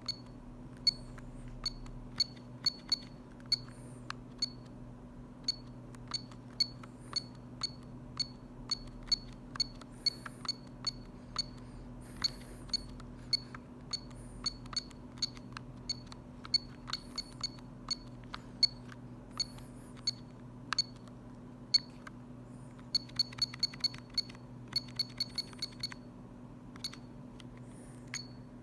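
Short, high keypad beeps from a Telecom Italia Tech New Master phone as its buttons are pressed one after another at an irregular pace, with quick runs of several presses near the end.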